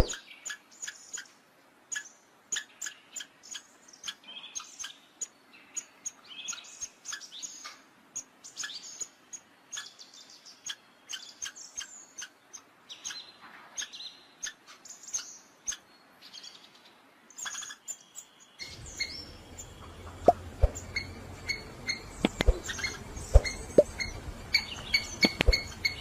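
Short, high-pitched animal chirps and ticks, one to three a second at irregular spacing. About two-thirds of the way through, a low rumble joins them, and the chirps come sharper, repeating on two steady pitches.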